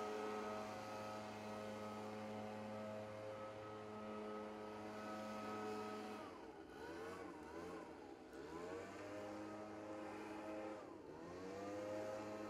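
An engine running with a steady hum. After about six seconds its pitch sags and wavers, dips once more near eleven seconds, and then climbs back, as when revs drop and pick up again.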